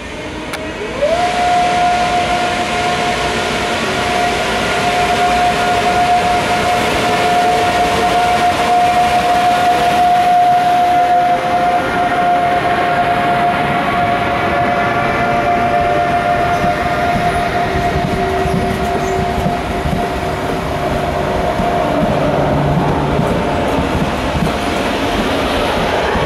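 SNCB class 18 electric locomotive hauling a long train of passenger coaches past the platform, its wheels running on the rails throughout. A steady whining tone comes in about a second in, rises briefly, then holds level almost to the end.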